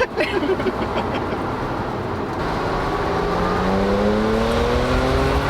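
2012 Audi S5 Cabriolet's engine and stock exhaust pulling hard under acceleration, its pitch rising steadily through the second half as the revs climb.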